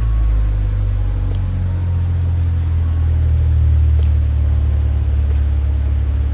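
Lexus IS300's inline-six engine idling steadily through its ARK Performance aftermarket exhaust: an even, deep, low rumble.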